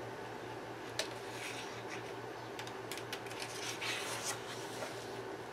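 Paper page of a paperback coloring book being handled and turned by hand: a small sharp tick about a second in, then soft rustling and sliding of paper, strongest as the page turns near four seconds in.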